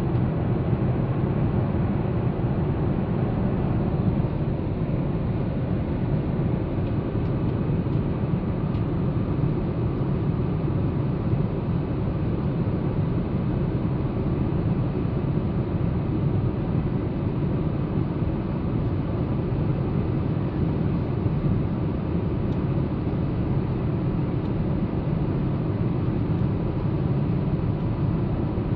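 Steady cabin noise inside a Boeing 787 Dreamliner in flight: an even, low rumble of the engines and the air rushing past the fuselage.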